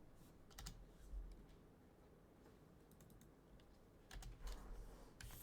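Faint typing on a computer keyboard, in a few short spells of clicks: just after the start, about a second in, and around four seconds in, with near silence between.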